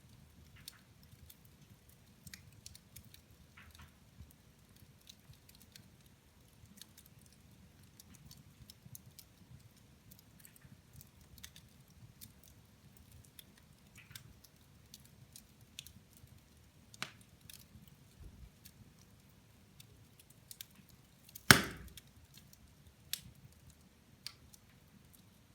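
Wood fire in a fireplace crackling, with scattered small snaps and a few sharper pops, the loudest one about three quarters of the way through.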